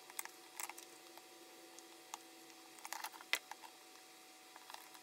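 Faint scattered clicks and ticks of a small Phillips screwdriver working the screws of a MacBook's metal battery-bay L bracket as they are loosened, over a faint steady hum.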